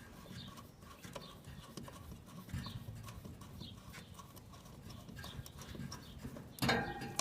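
Phillips screwdriver backing a screw out of a sheet-metal air-conditioner mounting shell: faint small clicks and squeaks about once a second. There is a louder burst of noise near the end.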